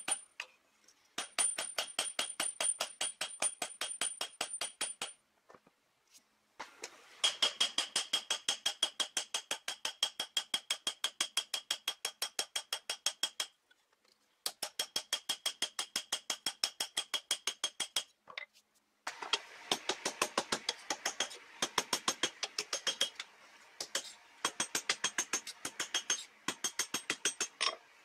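Hand hammer striking red-hot steel on an anvil, forging the blade of a tomahawk made from an old stone-maker's pick. The blows come in rapid runs of several a second with short pauses between, and each blow rings.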